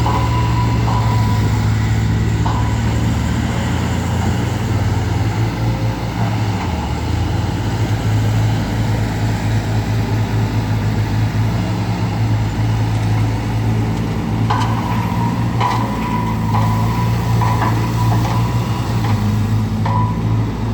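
Heavy earthmoving machine's diesel engine running steadily at a low, loud drone. Its pitch dips briefly about six seconds in, and clanks and metallic squeals come in about two-thirds of the way through.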